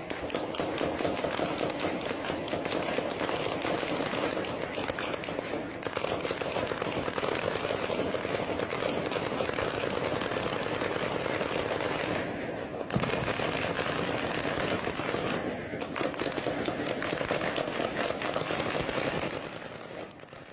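Sustained heavy gunfire: a dense, unbroken crackle of rapid shots, with a brief lull about twelve seconds in and a single sharper crack just after it. It fades near the end.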